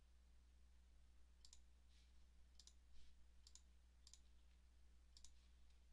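Faint computer mouse clicks, about five spread over a few seconds, over a low steady hum.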